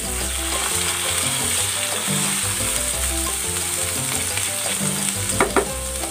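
Pork slab searing in oil in a nonstick frying pan with onion and garlic, sizzling steadily as it is turned. A couple of sharp clicks near the end.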